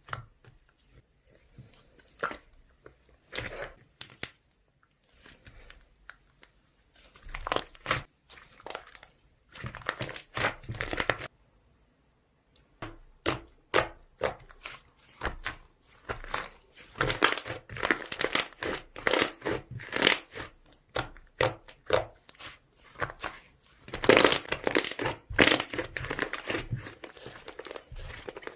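Slime being squeezed, poked and stretched by hand, giving bursts of fast crackling and clicking with short pauses between handfuls.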